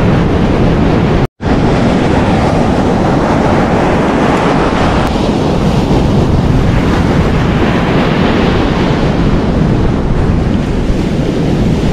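Surf breaking on the beach and wind buffeting the microphone in a steady, loud rush; the sound cuts out completely for an instant about a second in.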